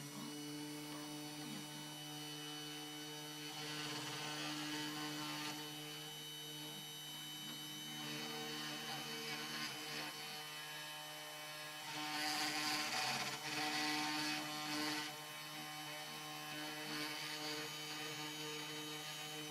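Sainsmart 3018-PROVer desktop CNC router running an engraving job: a steady motor hum with short whines that shift in pitch as the axes move. The bit cuts into the chipboard, and the cutting gets louder for a few seconds about twelve seconds in.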